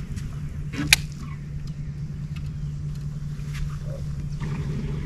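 Steady low motor hum from the bass boat, with a single sharp click about a second in.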